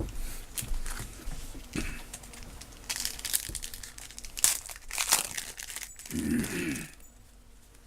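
Foil trading card pack wrapper crinkling and being torn open, an irregular run of crackles. A short low voice-like sound about six seconds in.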